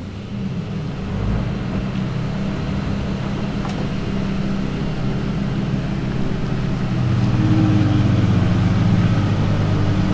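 Novitec-tuned Ferrari F12 N-Largo's 6.3-litre V12 idling with a steady, deep note, growing a little louder from about seven seconds in.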